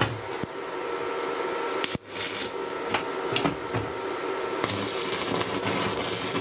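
Metalworking on a spoked metal wheel: sharp knocks and clanks every second or so over a steady hum, with a rougher, brighter hiss joining about five seconds in.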